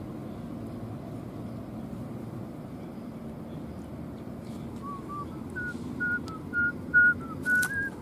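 A person whistling a short tune: about ten clear, short notes beginning about five seconds in and stepping up in pitch toward the end, over a steady low background hum.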